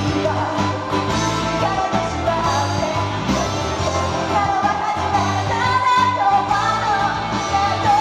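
Live karaoke: a woman singing an upbeat rock-style anime song into a microphone over a recorded backing track, both played through a stage PA.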